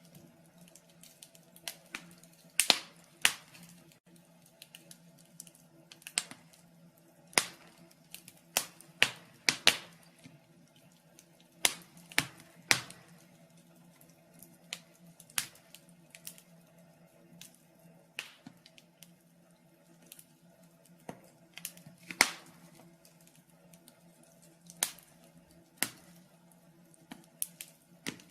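Wood fire in a fireplace crackling, with irregular sharp pops and snaps, a few of them louder, over a faint steady low hum.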